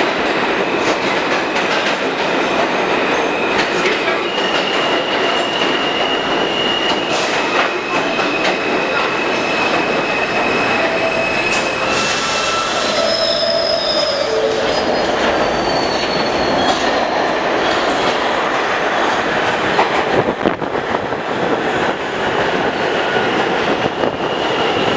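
New York City Subway R160A train running along the track, with steady wheel and rail noise and high-pitched wheel squeals that come and go.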